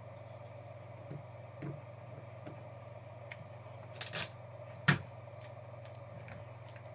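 Trading cards and card packaging being handled on a table: a few light clicks and taps, a short rustle about four seconds in and one sharp click just before five seconds, over a steady room hum.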